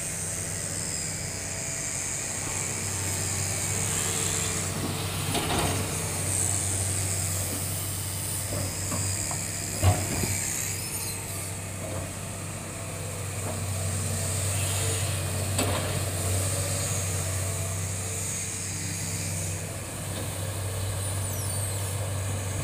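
Hitachi hydraulic excavator's diesel engine running steadily while the bucket works loose soil, with a sharp knock about ten seconds in and a few lighter clicks.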